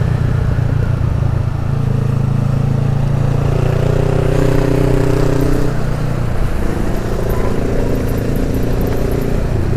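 Honda CB 500F parallel-twin engine with a Jeskap aftermarket exhaust running at steady revs, its pitch shifting up and down a few times.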